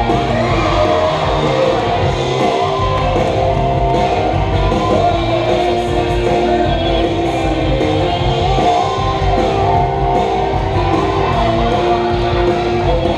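Music with guitar, playing at a steady, loud level.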